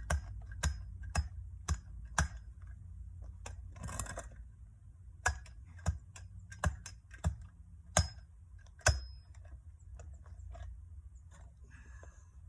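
Hand tamper striking freshly laid cold-patch asphalt in a pothole, compacting it in sharp strikes about twice a second. The strikes pause for a few seconds, broken by a short scraping rush near four seconds in. The two loudest strikes, near eight and nine seconds, ring metallically.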